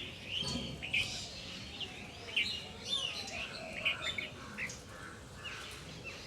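Several small birds chirping and singing at once, short overlapping calls one after another, busiest in the first few seconds and thinning out toward the end.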